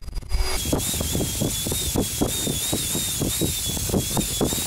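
Handheld electric paddle mixer stirring thick plaster mortar in a bucket: the motor whines steadily with a slight waver, and the paddle churns the heavy mix in a rhythmic beat of about six strokes a second. The sound starts about half a second in, after a brief break.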